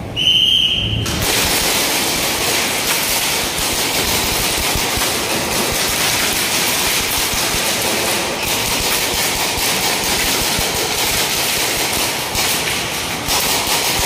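A short high-pitched start signal lasting under a second, then a dense, continuous clatter of rapid airsoft gunfire that goes on without a break.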